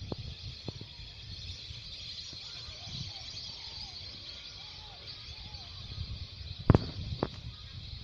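Steady high chatter of a large flock of migratory birds calling in the distance, over a low rumble, with two sharp knocks about seven seconds in.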